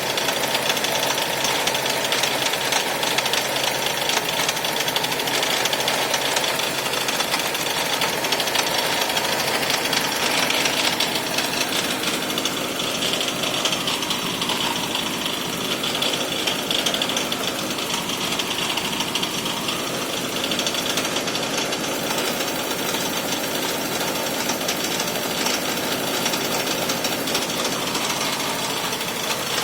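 2001 Toyota Camry engine running at a super rough idle: a steady, rapid, uneven rattling chatter that never settles into a smooth hum.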